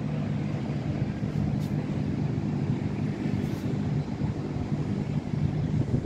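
Steady city traffic hum rising from the busy streets far below, a constant low drone with no distinct events.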